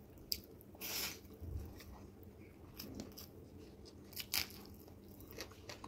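Close-miked eating sounds: a person chewing a mouthful of curry and rice, with soft wet chewing between a few sharp crunches. The crunches come about a third of a second in, about a second in and a little past four seconds in.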